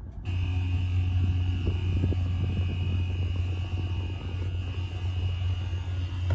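An odd noise coming over an FM radio broadcast in place of the station's music: a steady low hum with a thin high tone held above it, cutting in abruptly just after the start.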